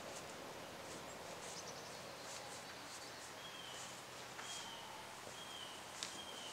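Faint outdoor ambience of birds and insects: scattered short high chirps over a steady hiss, and from about halfway through a bird repeating a short high note roughly once a second.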